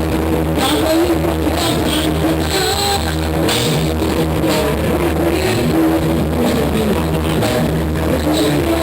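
Band playing rock music, with drum kit and guitar keeping a steady beat.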